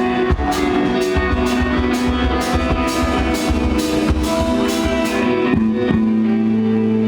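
Live rock band playing: electric guitar with heavy reverb over bass and a steady drum beat of about two strokes a second. About six seconds in the drums stop and a low bass note and guitar chord ring on.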